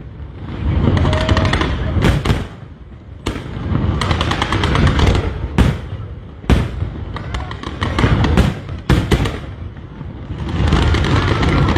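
Aerial fireworks bursting overhead: a string of sharp booms about one a second, with bursts of crackling between them.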